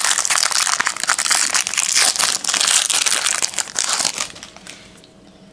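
Trading-card pack wrapper crinkling as it is torn open by hand: a dense crackle lasting about four seconds that stops well before the end.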